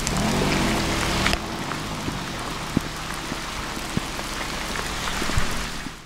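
Steady rain falling, with scattered drips, while a car moves off along the wet road in the first second or so; the sound fades out near the end.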